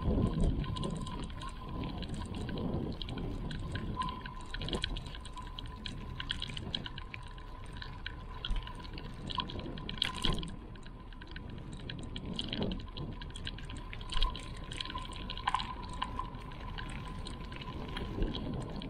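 Water of a small brook trickling and splashing, with irregular small drips and plops.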